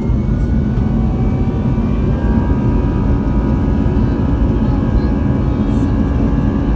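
Airbus A320 jet engines and airframe noise heard inside the cabin as the airliner rolls along the runway: a loud, steady rumble, with a thin whine from the engines coming in about two seconds in.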